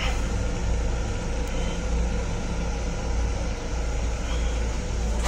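Steady low rumble and hiss of a Long Island Rail Road M7 electric railcar, heard from inside its small enclosed restroom.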